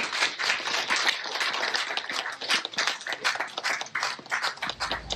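A small crowd applauding.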